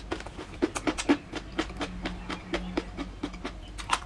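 Rapid irregular crisp clicks and crackles, several a second, with a faint low hum in the middle of the stretch.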